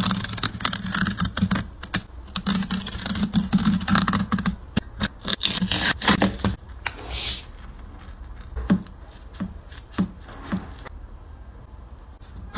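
A Nike Kyrie 4 basketball shoe being taken apart: irregular scraping, scratching and tearing as its materials are cut and pulled away. It is dense for the first half, then thins out to scattered short clicks and knocks.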